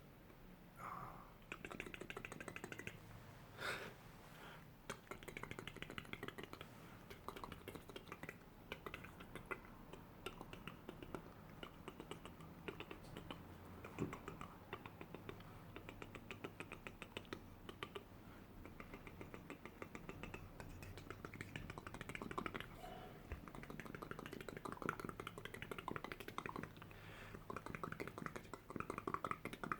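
Close-miked ASMR trigger sounds: soft, rapid clicks running on without pause.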